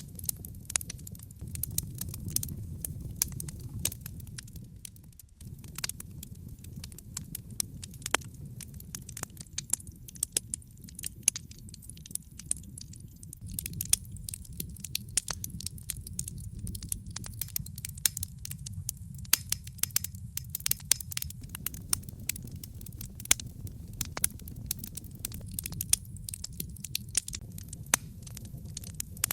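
Logs burning in a fireplace: a steady low rumble of flames with frequent sharp crackles and pops, briefly quieter about five seconds in.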